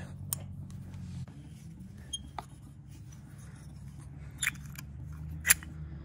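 About five short metallic clicks as a 4 mm Allen wrench turns out a pad-retaining pin on a motorcycle front brake caliper, the loudest near the end, over a low steady hum.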